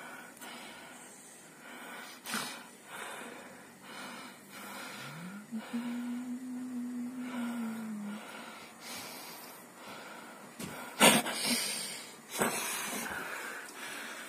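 Frightened tabby kitten hissing in several short breathy bursts, with one long low growl about five seconds in that rises in pitch, holds for some three seconds and drops away. A sharp, loud burst comes about eleven seconds in.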